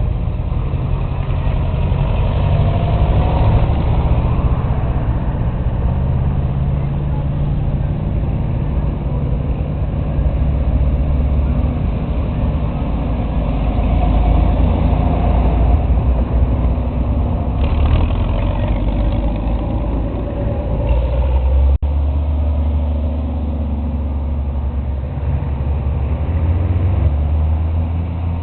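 Farm tractor engines running, a low, steady engine note that rises and falls a little in pitch, with an abrupt change in the sound about three-quarters of the way through.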